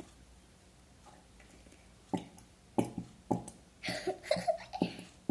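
Squeezed glue bottle sputtering, air and glue spurting from the nozzle in a series of short fart-like squirts, starting about two seconds in.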